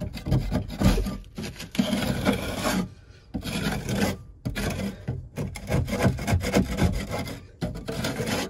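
A metal scraper scraping dried, caked chicken droppings off a wooden board in repeated strokes, with short pauses between them.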